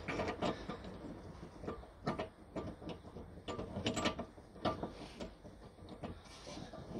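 Irregular light metallic clicks, knocks and scrapes of hand work on a Rover 45's rear brake caliper, during the attempt to rewind its piston.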